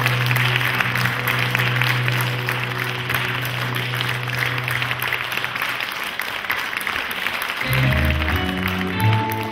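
Theatre audience applauding, over a low held note from the backing track that fades out about six seconds in. Near the end a new piece of music starts with plucked, guitar-like notes.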